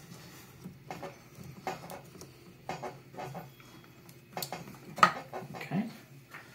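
Hard plastic parts clicking and knocking as a plastic cap with a rubber O-ring is handled and pushed into the plastic housing of a DAB EsyBox booster pump: a scattered series of sharp clicks, the loudest about five seconds in.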